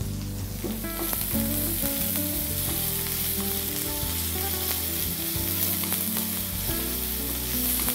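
Chopped onions sizzling in hot oil in a kadai, with mustard seeds, curry leaves and green chillies, stirred with a wooden spatula: the sautéing stage of an onion gravy base. The sizzle is a steady hiss with no break.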